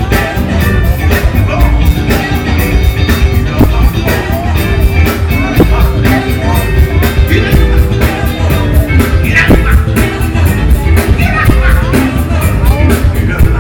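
Live funk band playing a steady, driving groove, loud, with some singing over it.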